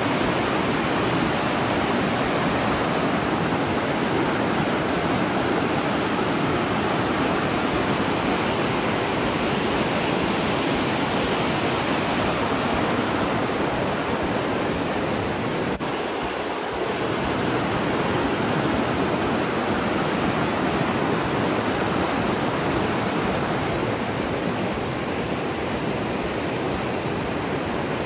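Brown floodwater rushing through a river weir: a steady roar of churning white water. The river is running high with water released through the opened Peechi dam shutters.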